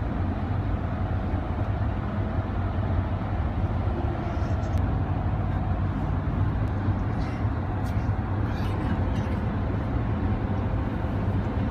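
Steady road and engine noise of a moving car, heard from inside the cabin, with a constant low hum.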